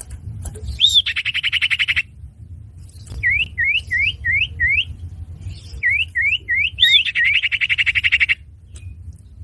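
Common iora (cipoh) calls played as a bird-catching lure: a loud rising-and-falling note runs into a rapid trill about a second long, then a series of short rising whistles (five, then three after a pause), then another loud note and a longer trill. A low steady hum runs underneath.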